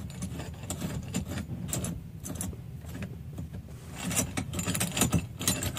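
Metal clinks and rattles as a steering-wheel lock plate compressor tool is unscrewed by hand from the steering column shaft, the clinking getting busier in the last couple of seconds.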